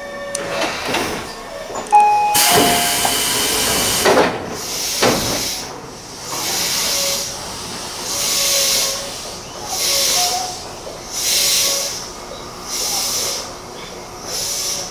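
Electric commuter train with a loud hiss of compressed air, followed by a series of shorter hisses about every second and a half. Brief wheel or brake squeals come in the first few seconds.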